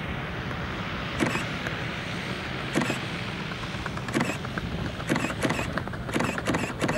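Steady wind noise rushing over the microphone, with light handling knocks every second or so that come closer together near the end.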